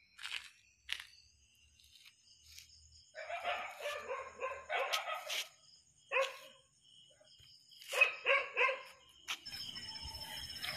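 Dogs barking in several bouts, ending in a quick run of three barks about eight seconds in, over a steady high insect trill. Near the end the noise of an approaching vehicle rises.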